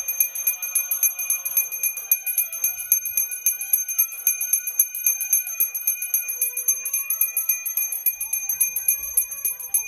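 Small brass puja hand bell (ghanti) rung rapidly and steadily during worship, its clapper striking several times a second and leaving a bright, high ringing.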